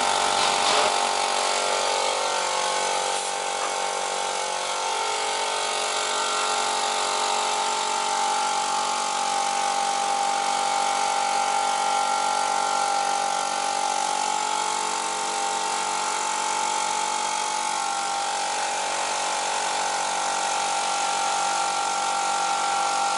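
Steady machine running: an electric motor's even whining hum that holds unchanged throughout.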